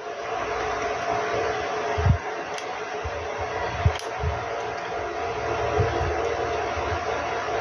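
A steady whirring of a small motor blowing air, with a few soft knocks from handling on the bench.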